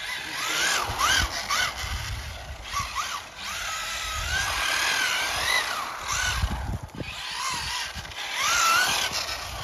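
Radio-controlled model car's electric motor whining, its pitch rising and falling again and again as the car speeds up and slows down, over a low rumble.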